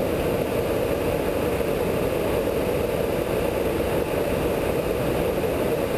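Steady in-flight noise inside a KC-135 tanker's boom operator pod: an even rush of airflow and engine noise that holds at one level throughout.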